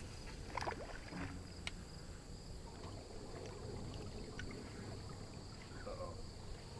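Faint, steady low rumble of a fishing boat on a moving river, with water along the hull and a few light clicks.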